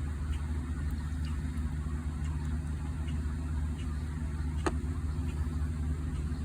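A steady low machine hum, with a single sharp click about two-thirds of the way through.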